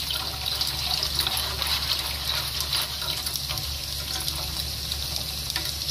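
Wet squelching and trickling as soaked tamarind pulp is squeezed by hand in a wire-mesh strainer, its juice running and dripping into a steel pan below.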